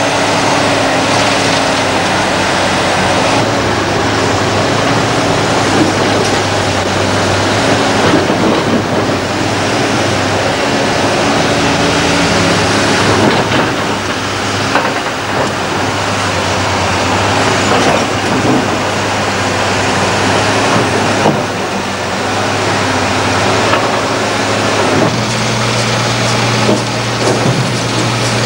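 Heavy diesel engines of a Liebherr R962 Litronic crawler excavator and Mercedes dump trucks running, a steady engine drone that shifts abruptly several times.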